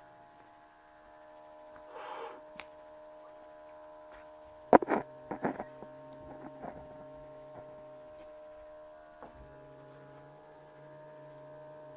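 Steady electrical mains hum, with one hard knock about five seconds in, likely a chunk of stone set down on the tabletop, followed by a few lighter clicks.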